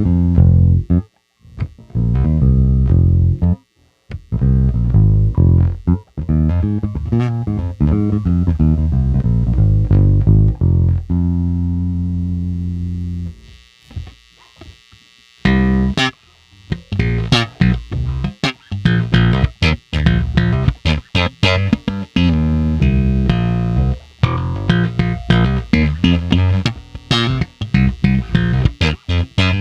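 Squier Classic Vibe 50's Precision Bass played solo through a Fender Rumble 100 bass amp: a run of separate notes, then a long held note that fades out. After a short pause, a busier passage of sharp, bright-attacked notes.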